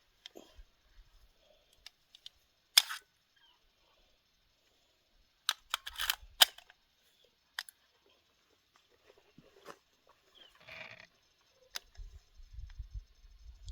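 Sharp mechanical clicks and clacks from something being handled: a single loud one about three seconds in, a quick run of several around six seconds, then a few scattered ones, with a low rumble starting near the end.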